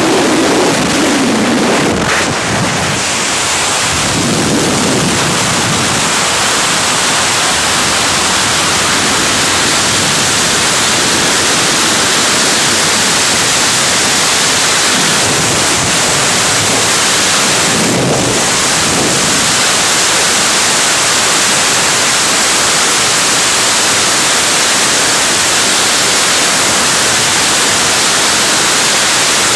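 Loud, steady rush of freefall wind over a camera's microphone during a skydive.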